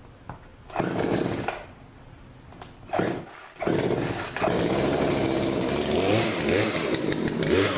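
Craftsman two-stroke chainsaw being pull-started: it fires briefly twice, then catches about three and a half seconds in and keeps running, revving up and down.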